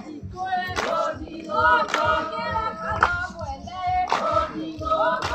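A group of women singing a traditional song together, with a sharp clap about once a second keeping the beat.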